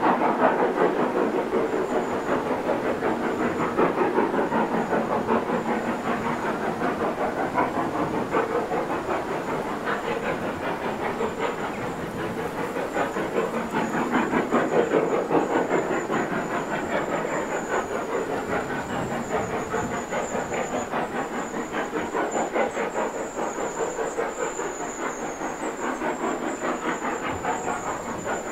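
Steam locomotive hauling a goods train, its exhaust beating in a rapid, even chuff that slowly fades as the train draws away.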